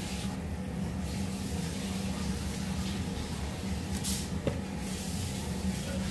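A steady low hum, with a brief crinkle of aluminium foil about four seconds in as fish fillets are laid on a foil-lined tray, and a small click just after.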